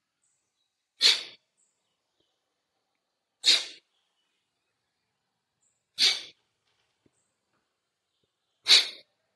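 Kapalabhati breathing: four sharp, forceful exhalations through the nose, about two and a half seconds apart, each a short puff of air driven out by pulling the belly in.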